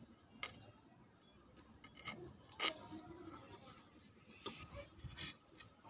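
Faint scattered clicks and light scraping as the parts of a car power-window regulator (steel cables and cable guides) are handled on a tiled floor, the sharpest click about two and a half seconds in and a small cluster near the end.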